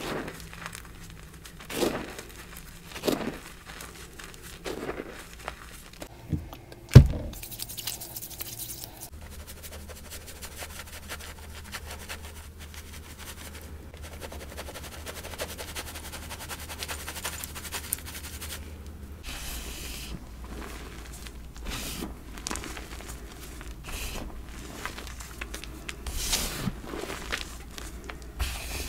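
Dyed gym chalk blocks being crushed and crumbled by hand in a metal mesh sieve: scattered soft crunches and scrapes, then a steady quiet hiss as the powder is sifted through the mesh. A single sharp knock about seven seconds in is the loudest sound, and more crunches come near the end as fingers press into the loose powder.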